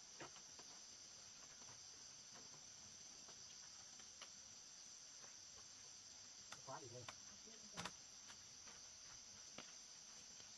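Faint, steady high-pitched chorus of insects such as crickets. A few light clicks break in, the sharpest nearly eight seconds in.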